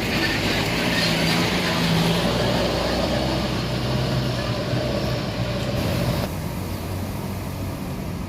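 Bus engine running close by as a bus moves past, with a steady low hum. The sound drops sharply about six seconds in, leaving quieter engine noise.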